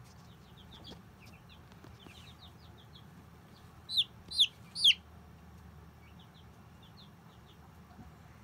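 Baby chicks peeping: soft, short high peeps throughout, and three loud peeps falling in pitch, close together, about four seconds in.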